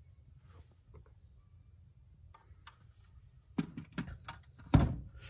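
Die-cast model car being handled and set back on a shelf: a few faint ticks, then in the second half a cluster of sharp clicks ending in a dull knock.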